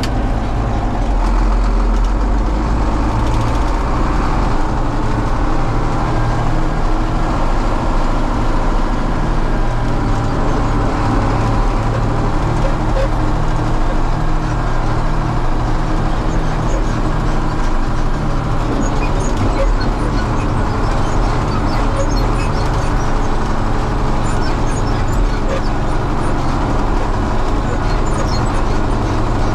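John Deere 7520 tractor's diesel engine running steadily in 8th gear at road speed.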